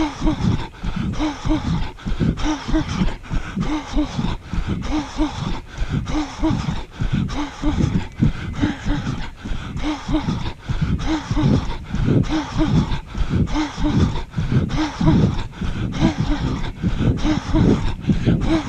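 A runner breathing hard in a steady rhythm close to the microphone, each breath voiced, at about two breaths a second.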